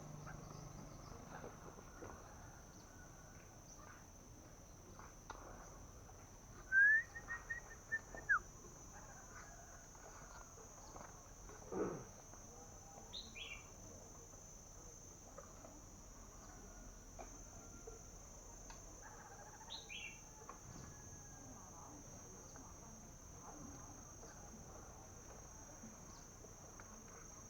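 Faint, steady high-pitched drone of crickets with a few bird calls over it: a held whistled note about seven seconds in and short falling chirps around thirteen and twenty seconds. There is also a brief low falling sound near twelve seconds.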